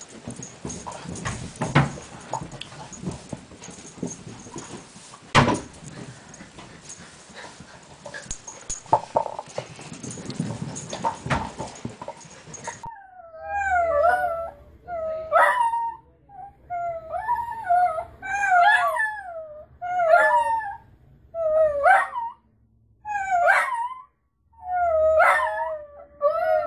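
For the first half, a steady hiss with a few sharp knocks. From about halfway through, a dachshund whines in a string of wavering, high-pitched whimpers, about one a second, each bending up and down in pitch.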